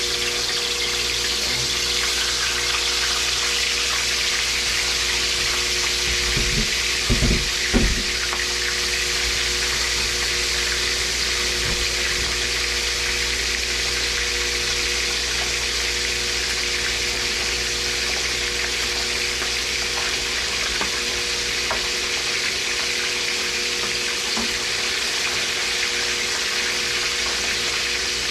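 Hot oil sizzling steadily in a frying pan, with a few low thumps about seven seconds in.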